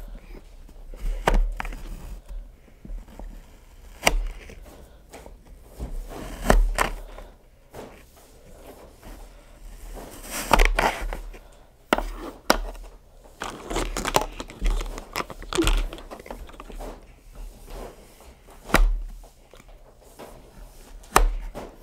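Kinetic sand being pressed and cut by hand with plastic molds and tools on a table: irregular scraping and crunching, with scattered sharp taps and low thumps on the tabletop.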